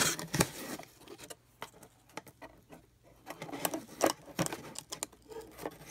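Rustling of cardboard packing and light clicks and taps of thin brass model catenary poles being handled in a shipping box, busiest at the start and again around four seconds in.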